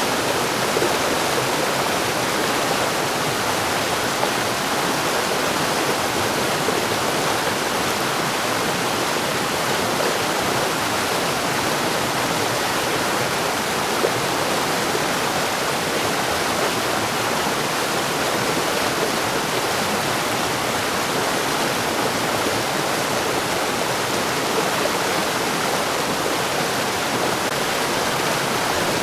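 Mountain stream rushing and splashing over rocks, a steady unbroken water sound.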